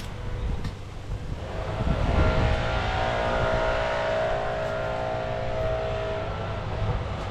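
An engine running steadily, building up about a second and a half in and fading near the end.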